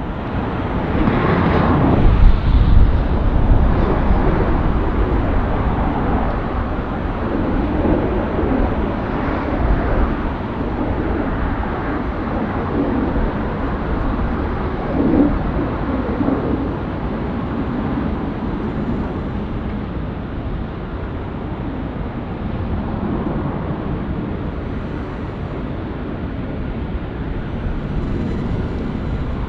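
Jet engines of a Korean Air Boeing 777-300ER (GE90 turbofans) taxiing past as a steady rushing rumble, loudest a couple of seconds in and then slowly fading.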